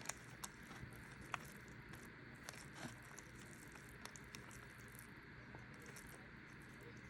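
Faint eating sounds: a few soft clicks and smacks, spaced irregularly, over a quiet background.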